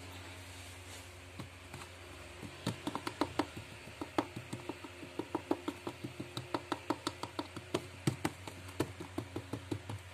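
A long run of light, quick taps, several a second and uneven in strength, starting a couple of seconds in, over a low steady hum.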